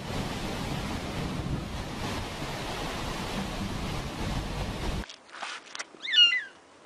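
Steady rushing wind noise on the microphone for about five seconds, stopping abruptly. About a second later a cat gives one short, loud meow.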